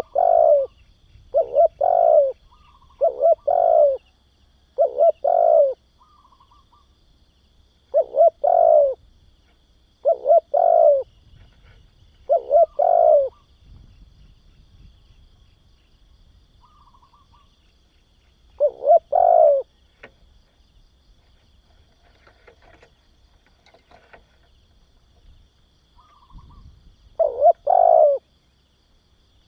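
Spotted dove cooing: short phrases of two or three low, falling coos, repeated every second or two at first and then after long pauses.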